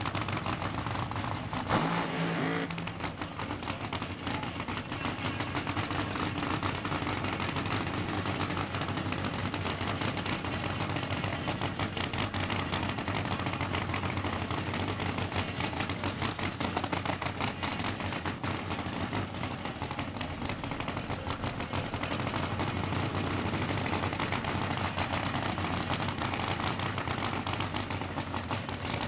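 Nitro funny car engine idling with a rapid, uneven crackle. There is a short louder jolt about two seconds in.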